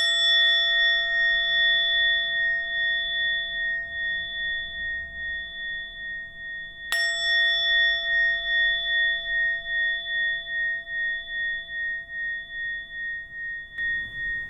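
Small Tibetan singing bowl struck twice, about seven seconds apart. Each strike rings on as several high steady tones that pulse in loudness and slowly fade.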